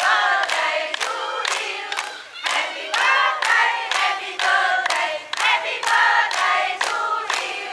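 A group of people singing together, with a sharp regular beat about two and a half times a second.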